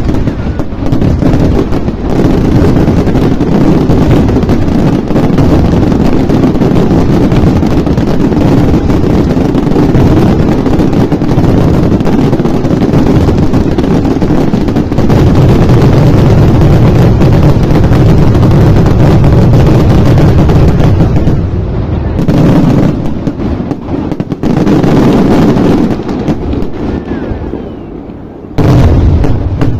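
Fireworks barrage: rapid, nearly unbroken bangs and crackles, loud enough to overload the microphone. It thins out about three-quarters of the way through, with a few last loud volleys and one more strong burst near the end.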